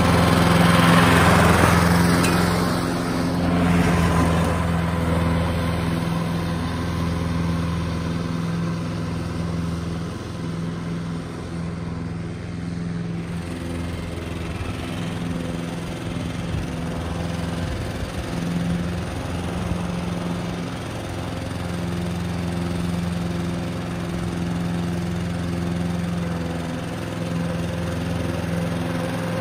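Toro ProStripe 560 walk-behind rotary mower's engine running steadily under load while mowing. It is loudest in the first few seconds as it passes close, fainter in the middle as it moves away, and grows a little louder again near the end as it comes back.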